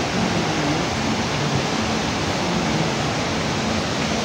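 Mountain stream rushing over boulders below a waterfall: a steady, even roar of white water.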